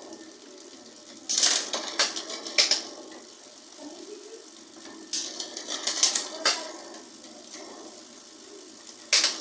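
Bicycle chain clicking and rattling as a newly fitted Shimano Acera rear derailleur shifts it across the cassette cogs while the drivetrain is turned. The clatter comes in three bursts about four seconds apart.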